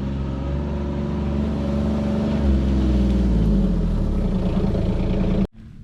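Vehicle engine running, then speeding up a little about halfway through as it accelerates away, before cutting off suddenly near the end.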